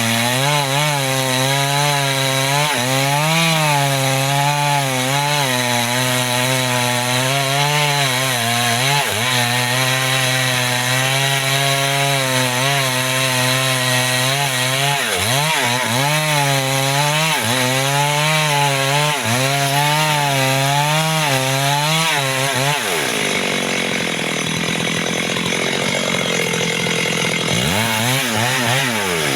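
Two-stroke chainsaw cutting into a mahogany trunk at high revs, its engine note wavering up and down as the chain bogs and frees in the wood. About three-quarters of the way through the revs drop off, then the saw is throttled up again near the end.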